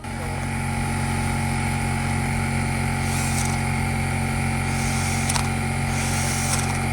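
Power drill running steadily at constant speed, then cut off about seven and a half seconds in.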